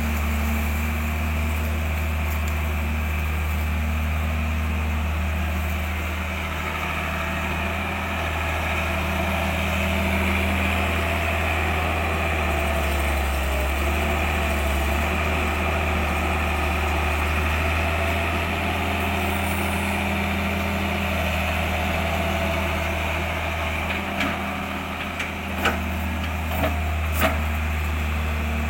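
Engine running steadily with a constant low hum. Near the end there are a few short, sharp knocks.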